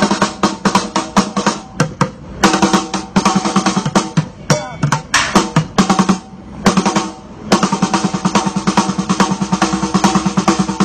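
Bucket drumming: upturned plastic buckets played in fast, dense rolls and rhythms, with short breaks twice, then settling into a fast, even beat for the last few seconds.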